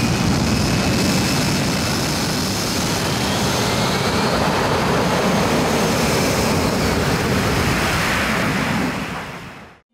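F-35B in short-takeoff mode, its jet engine and lift fan at full power, making a loud, steady jet noise as it accelerates down the runway for a ski-jump takeoff. The noise fades out near the end.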